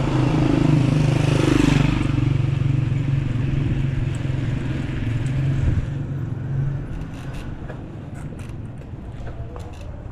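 A motor vehicle's engine running close by, loudest in the first two seconds and fading away about seven seconds in, followed by faint scattered clicks and rattles.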